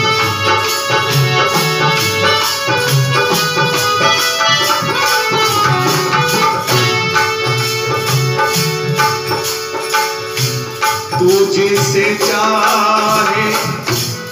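Instrumental interlude of a Hindi devotional bhajan: a naal hand drum keeps a steady rhythm under a held melody line, with jingling percussion on the beat.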